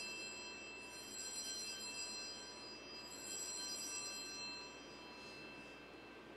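Altar bells rung at the elevation of the host during the consecration: clear, ringing tones struck again a few times, each ring hanging on, then fading out about five seconds in.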